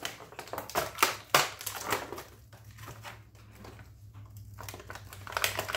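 Clear plastic action-figure packaging crinkling and crackling as it is handled, in an irregular run of crackles, the sharpest about a second in.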